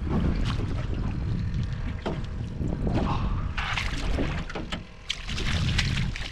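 Wind buffeting the microphone on open water. A hooked striped bass splashes at the surface in the second half, heard as two brief bursts of splashing.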